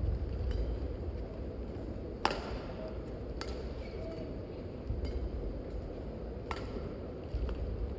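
Badminton rally: rackets strike the shuttlecock in sharp cracks, the three loudest a little past two seconds in, about a second later, and past six seconds, with fainter hits between. Dull low thuds of the players' footwork on the court sit underneath.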